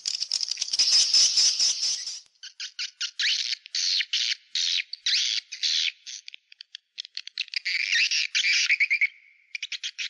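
Swallows twittering. A dense burst of chatter comes first, then a string of rapid, high twittering phrases with short breaks between them.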